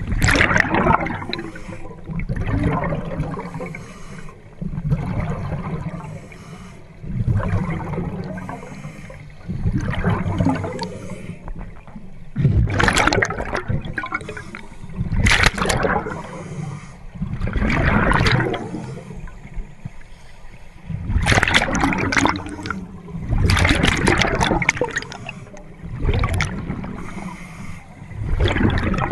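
Scuba regulators underwater: bubbling bursts of exhaled air every two to three seconds over a steady low rumble of water.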